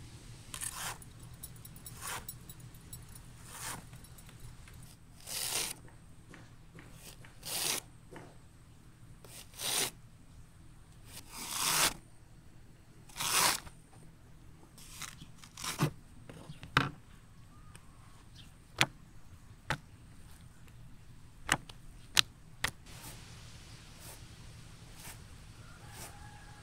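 Zucchini being shaved into thin lengthwise strips with a wide stainless-steel hand slicer: a series of rasping slicing strokes about every one and a half to two seconds. In the second half the strokes give way to a few short, sharp clicks.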